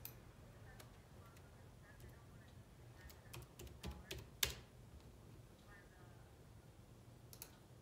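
A few scattered keystrokes on a computer keyboard, single taps and short runs of clicks, the sharpest about four and a half seconds in, over quiet room tone.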